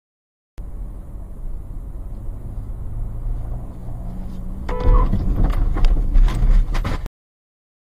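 Dashcam recording inside a moving car: a steady low engine and road rumble. A brief horn blast sounds a little before five seconds in, followed by a run of loud knocks and heavy thumps, the sound of the collision.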